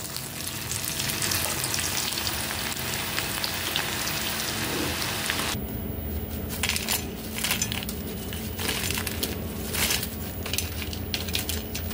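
Onion bhajiya sizzling steadily in hot oil on their second fry. About five and a half seconds in the sizzle gives way to a run of crisp clicks and rattles as the fried fritters are tipped from a wire skimmer onto a steel plate. The crunchy rattle is the sign that the double fry has made them crisp.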